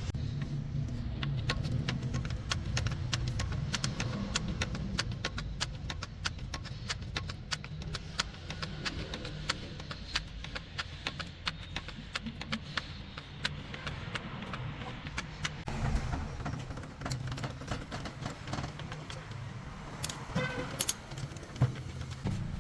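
Metal tools and parts clicking and clinking in quick, irregular succession over a low steady rumble, during truck leaf-spring repair; the clicks thin out about two-thirds of the way through, and a short squeak comes near the end.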